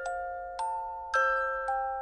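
Background music: a slow, gentle melody of struck, bell-like notes, each ringing and fading, about two notes a second.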